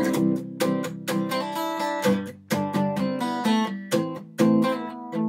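Acoustic guitar strummed in a steady rhythm, about two strums a second, the chords ringing between strokes.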